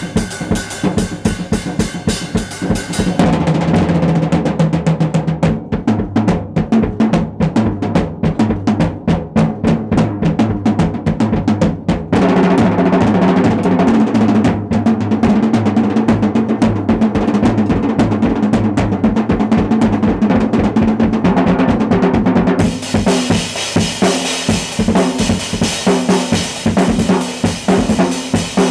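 Acoustic drum kit played in a fast solo: rapid, unbroken strokes across the drums with the bass drum underneath, and a bright ringing wash over it at the start and again through the last quarter.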